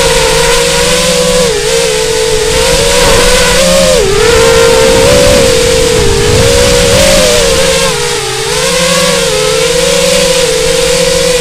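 FPV quadcopter's brushless motors and propellers whining with a hiss of rushing air, the pitch dipping and rising as the throttle changes, with a deeper dip about eight seconds in.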